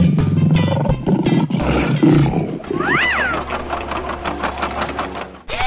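A big cat's growl, a sound effect for a toy black panther, rough and low for about two and a half seconds. Then a quick rising-then-falling whistle, and a steady low hum with rapid clicking.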